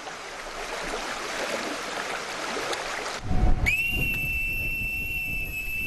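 A boatswain's pipe sounding one long, steady high whistle from a little past halfway, after a low thump; before it only a faint hiss of harbour air.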